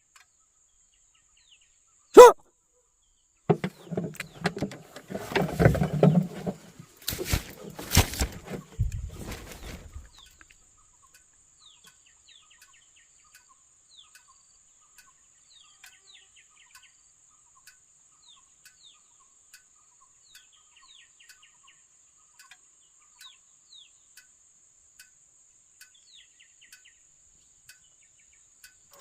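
A dog gives one bark, then several seconds of noisy scuffling with two sharp loud cracks. After that only small birds chirp over a faint steady high insect buzz.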